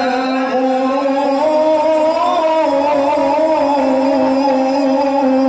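A male qari reciting the Quran in the melodic mujawwad style, holding one long, ornamented note with small turns in pitch.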